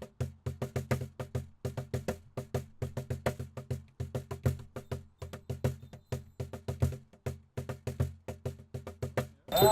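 A drum beaten in a fast, steady rhythm, about seven beats a second, with a deep tone and brief pauses now and then. Just before the end, louder sustained ringing tones come in.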